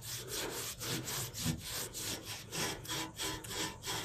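Cloth scrubbing back and forth on a rusty exhaust tailpipe coated with foaming rust cleaner, in quick even strokes, about four a second.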